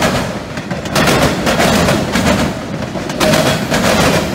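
Steel freight car wheels pounding across a railroad diamond crossing as autorack cars roll over it: a rapid, loud clatter of wheel impacts. It swells as each set of trucks crosses, about a second in and again about three seconds in.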